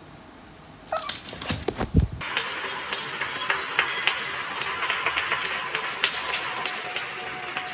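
After a quiet second, a few loud knocks and bumps, then many people clapping and cheering from the surrounding apartment windows and balconies: a dense, steady patter of distant applause.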